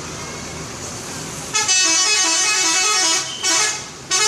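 A multi-tone telolet bus horn plays a quick tune of alternating notes, starting about one and a half seconds in. Two shorter blasts follow near the end.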